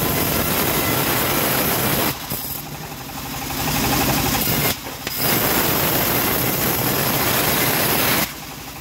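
Homemade bandsaw mill ripping a teak board: a loud, steady sawing noise from the band blade in the wood. It falls away twice, about two seconds in and near the end, as a cut finishes and the board is drawn back, leaving the machine's steady running hum.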